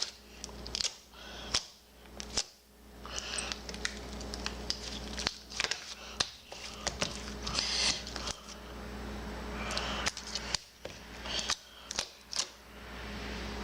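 Homemade slime being squeezed and kneaded by hand, giving a run of irregular sticky clicks and pops over a wet crackle.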